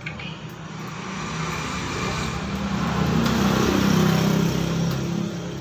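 A passing engine: a steady low hum that grows louder for about four seconds, then fades away.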